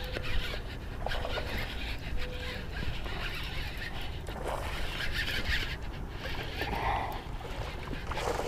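Baitcasting reel being cranked on a retrieve: a faint soft whir with fine ticking from the reel's gears, fading out after about six seconds.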